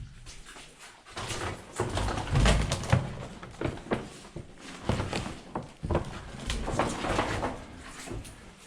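Footsteps crunching and scraping over loose rock and rubble on a mine floor, with irregular knocks. A low rumble comes in about two seconds in.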